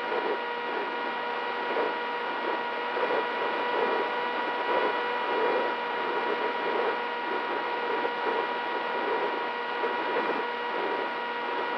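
Brushless motor and propeller of a small electric FPV flying wing in flight, heard through the onboard camera's microphone: a steady whine at an even throttle, with uneven rushing and buffeting from wind and airframe vibration.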